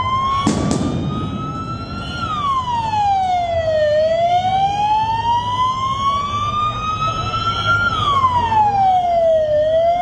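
Wailing siren, its pitch climbing slowly for about four seconds and then falling quickly, twice over. A short sharp crack sounds about half a second in.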